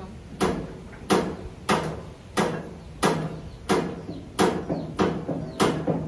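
Steady hammering, about three blows every two seconds, each blow ringing briefly.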